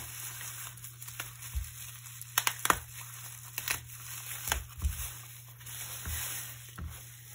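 Bubble wrap being pulled open and unwrapped by hand from a plastic part, rustling throughout with a cluster of sharp crackles about two and a half seconds in, and a few dull knocks from handling.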